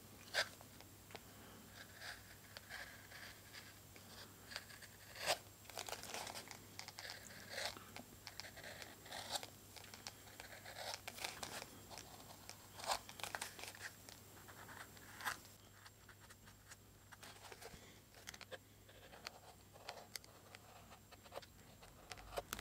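Mora Companion knife blade slicing thin shavings off the edge of a stitched leather sheath, trimming the welt flush: short cutting strokes and scrapes at irregular intervals, thinning out after about fifteen seconds.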